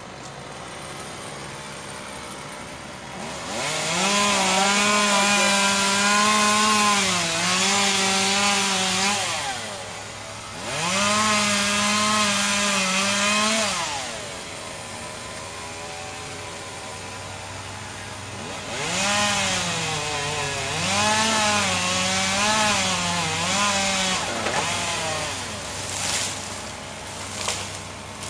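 Chainsaw run up to full throttle in three long bursts, its pitch sagging and recovering as it cuts into wood, dropping back to a lower running sound in between, with two short revs near the end.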